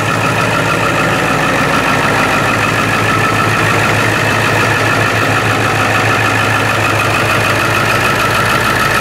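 Ford F-350 Super Duty's 7.3-litre Power Stroke turbo-diesel V8 idling steadily.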